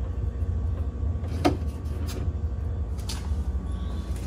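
A steady low hum with a few light clicks and knocks; the sharpest, a clink, comes about one and a half seconds in and another about three seconds in.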